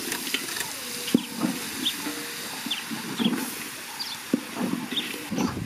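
Lamb, tomatoes and peppers sizzling and steaming in a large cooking pot, with irregular crackles and a few short high chirps.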